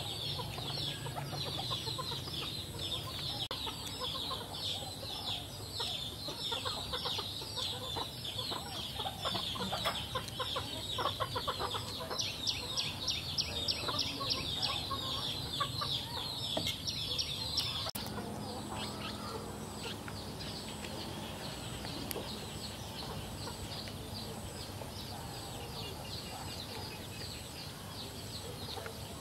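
Birds chirping, many short rapid calls overlapping in a continuous high-pitched chatter. The chatter grows fainter after a cut about eighteen seconds in, where a low steady hum joins it.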